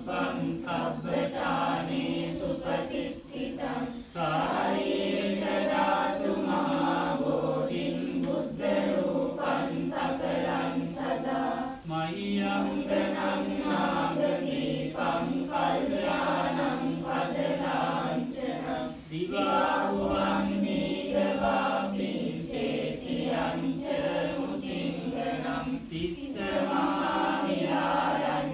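A group of voices chanting Buddhist devotional verses together in unison, in long held tones with brief pauses for breath.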